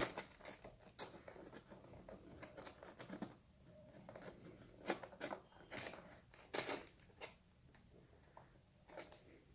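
Faint, scattered clicks and light taps of a plastic Mafex Spider-Man action figure being posed by hand: its limbs moved at the joints and its feet set down on the surface.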